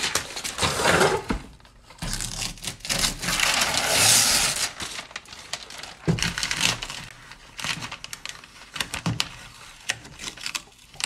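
Newspaper masking and painter's tape being peeled off a freshly painted stencil, paper crinkling and tape tearing away in bursts, louder in the first half and then scattered crackles.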